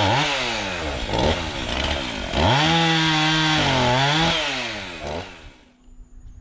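Gas chainsaw run up to full throttle twice to cut firewood, its pitch sagging under load through each cut and dropping back toward idle in between. The engine falls away near the end.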